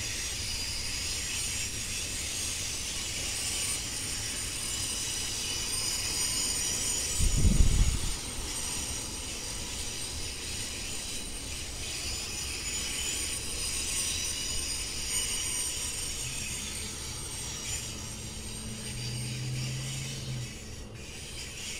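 Amtrak passenger train standing at a station platform, its GE Genesis diesel locomotive running with a steady low rumble under a constant high hiss. A loud low thump comes about seven seconds in.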